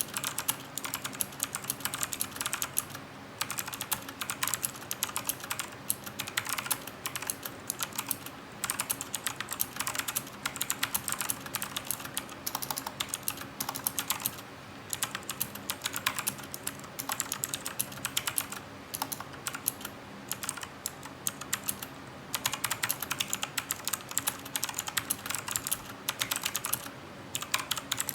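Typing on a Cooler Master CK350 mechanical keyboard with clicky Gateron Blue switches. Fast runs of crisp key clicks are broken by brief pauses.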